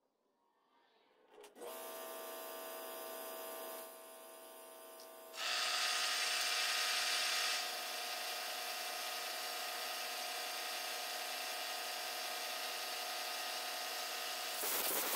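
A milling machine's spindle motor spins up about 1.5 s in and runs with a steady whine, and a cutting tool in the spindle cuts into a small metal casting, adding a louder hiss for a couple of seconds. A short louder rush comes near the end.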